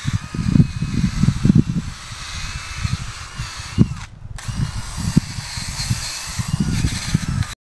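Handheld cordless drill running in uneven spurts against a rusty cast-iron fire hydrant, working off rust and old paint to prepare it for painting, over a rough, uneven low rumble. The higher sound breaks off briefly a little after the middle.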